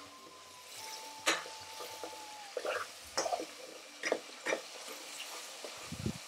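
Curry sauce sizzling quietly in an aluminium frying pan while a metal spoon stirs it, with a few short scrapes and clicks of the spoon against the pan as caramelised gravy is scraped off the bottom.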